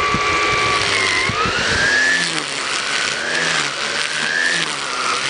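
A 1200-watt electric string trimmer's motor whining steadily at speed. About a second in its pitch dips and then settles lower and wavering as the nylon line takes load cutting grass.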